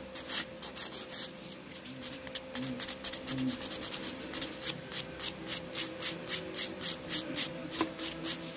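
Flat hand nail file rasping back and forth across an acrylic nail in quick, even strokes, about four a second, as the nail is filed to shape.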